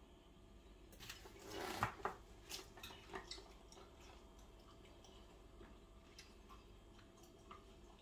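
Detergent being added to a washing machine's plastic dispenser drawer: a short rush of pouring that swells for about a second, then several light plastic clicks and taps.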